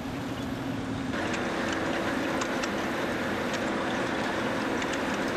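Farm machinery engine running steadily in the field; about a second in, a louder, fuller engine sound takes over and holds steady.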